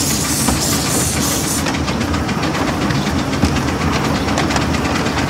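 Steam train running: the locomotive's steam hisses in rhythmic puffs until about a second and a half in, then stops. After that the wheels run on with a rumble and quick clicking over the rail joints.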